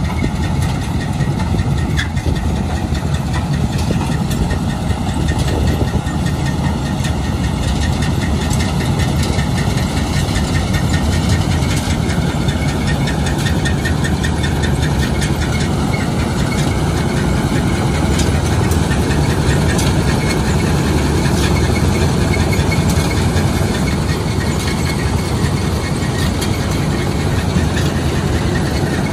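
New Holland combine harvester's diesel engine running steadily as the machine drives, with a fast, even ticking over the engine.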